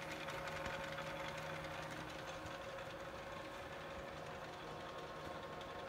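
South Bend Heavy 10 (10L) lathe running under power: a steady hum from its two-speed motor, belts and gear train turning smoothly, with a few even held tones.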